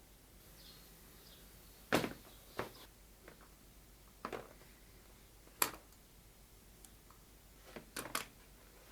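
Tools and accessories being handled and set down, giving a few sharp knocks and clacks at irregular intervals, with a quick cluster of three near the end.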